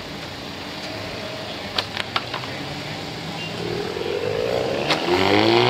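A car engine running, then revving up with a rising pitch over the last two seconds as the car accelerates away. A few short sharp cracks come about two seconds in and again near the end.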